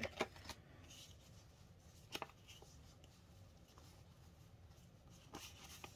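Faint handling of a stack of Canadian polymer banknotes: a few brief crisp rustles and taps as the bills are sorted and fanned, over quiet room tone.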